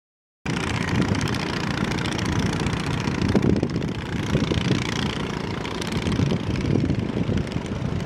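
Small boats' outboard motors running on the river, a steady, wavering engine noise that starts abruptly about half a second in.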